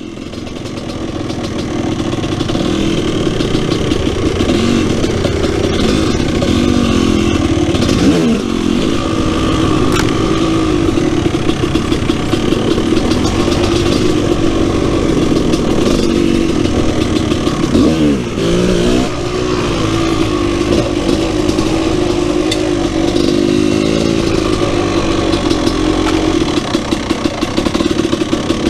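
2001 KTM 300 EXC's two-stroke single-cylinder engine running under way, heard close up. The revs rise and fall with the throttle, and the note dips and picks back up a couple of times.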